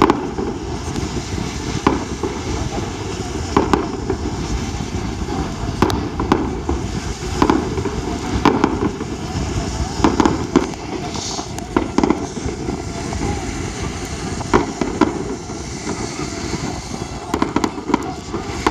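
Aerial fireworks going off, with sharp bangs every second or two at irregular intervals over a steady noisy background.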